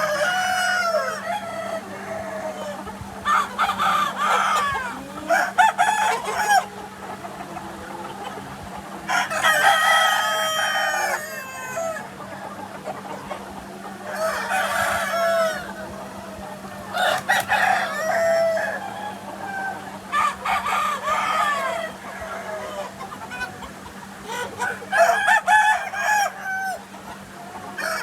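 Free-range village chickens calling: roosters crow again and again and hens cluck, in about seven bursts spaced a few seconds apart. A steady low hum runs underneath.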